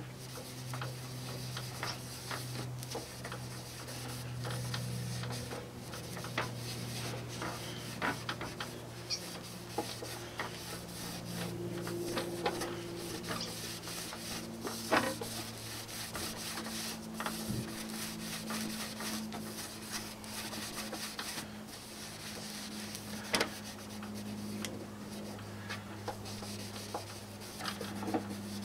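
Cloth rag rubbing and buffing a plastic car headlight lens: continuous scratchy rubbing with scattered small clicks. The rag is damp with carburetor cleaner, which softens the oxidised plastic so the buffing smooths and clears the lens.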